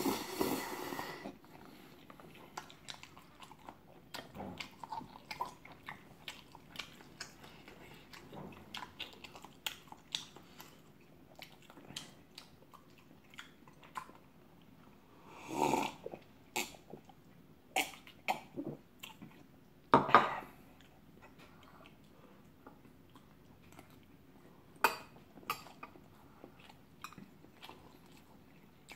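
Close-up eating sounds: a slurp of chewy noodles in the first second, then chewing with many small wet mouth clicks. A few louder bursts and clicks come about halfway through and again near the end.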